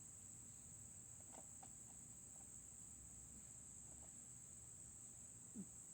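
Near silence with a steady high-pitched drone of crickets, and a few faint clicks.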